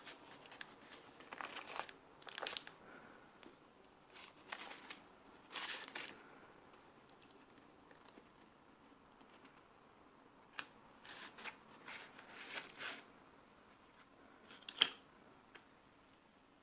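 Faint, scattered rustling and crinkling of the paper liner and cardboard pizza box as a hand handles and tears apart a slice of leftover pizza, with one sharper click near the end.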